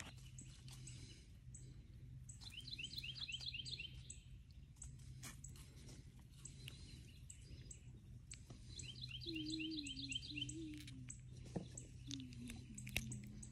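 Faint birdsong: two quick runs of repeated chirps, one a couple of seconds in and another about nine seconds in, over a steady low hum. Light clicks from handling the bait and line are scattered through it.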